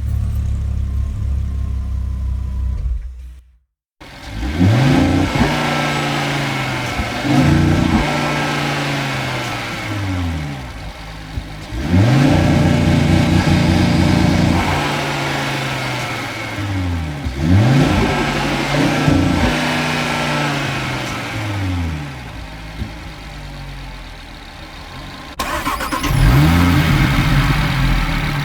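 A car engine idling steadily, then after a brief silence a car engine revved over and over, each rev rising and falling back, with one longer held rev midway before it settles lower toward idle. Near the end another engine recording starts with a sharp rev.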